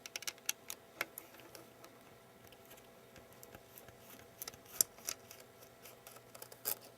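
Scattered light clicks and taps of small repair tools on an iPhone 3GS's internals while a sticker is lifted and a tiny screw worked out, a few sharp clicks standing out about halfway through and near the end.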